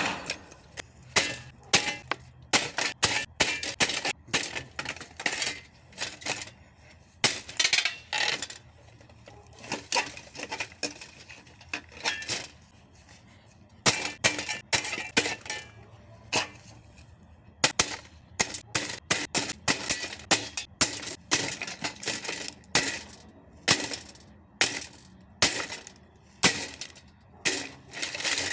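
A box fan being smashed apart: many sharp, irregular blows with plastic and metal parts cracking and clattering, some with a short metallic ring.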